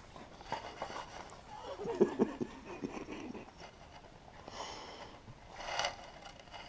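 A husky-type dog eating salad: wet chewing and mouth clicks, with a cluster of louder chomps about two seconds in. Near the end come two short snuffling breaths as it noses the floor for a dropped piece of lettuce.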